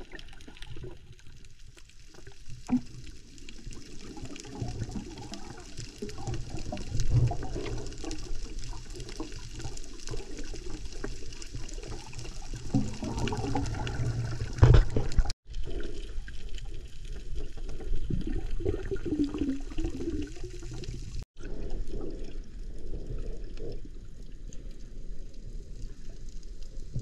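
Muffled underwater sound of water moving, with bubbling and low rumbling bumps. It cuts out twice very briefly, about halfway through and again a few seconds later.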